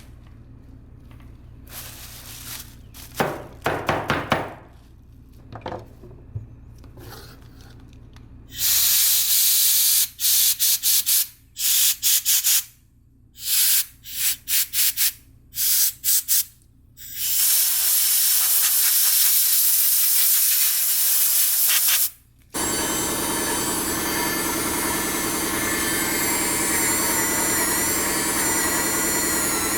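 Short on-off bursts of spray hissing as a motorcycle fuel pump and its rust-clogged filter are blasted clean, with a few quieter rubbing sounds before them. About two-thirds of the way through a continuous steady hiss takes over.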